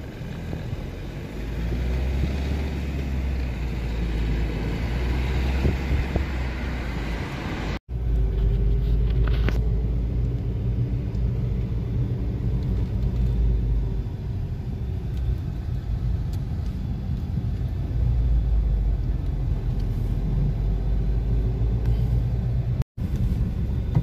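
Steady low rumble of a car's engine and tyres on the road, heard from inside the moving car. It cuts out for an instant twice.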